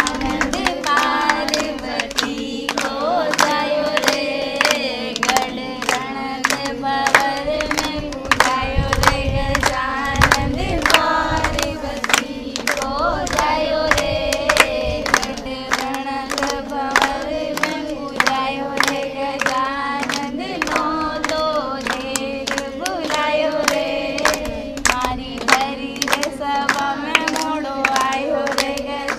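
A group of women singing a song together, clapping hands in a steady rhythm at about two claps a second.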